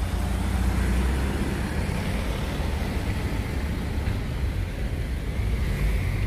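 Steady road-traffic noise: a continuous low rumble of vehicles with a hiss of tyres and air above it.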